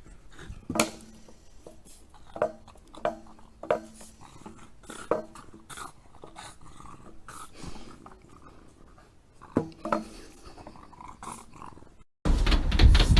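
A dog giving short barks and growls, several at uneven intervals. Near the end the sound cuts abruptly to a louder, dense noise.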